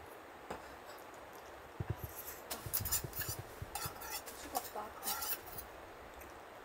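Eating noodles with metal chopsticks from a stainless steel bowl: a string of short slurps and light clinks of the chopsticks against the bowl, starting about two seconds in.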